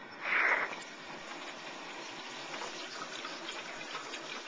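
Hot oil in a turkey fryer sizzling as a whole turkey is lowered in: a loud burst of hissing about half a second in, then steady bubbling and sizzling.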